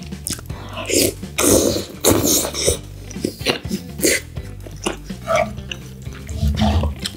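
Close-miked wet eating sounds: tomato-sauced spaghetti being chewed with moist smacking and squelching, and a few light clicks.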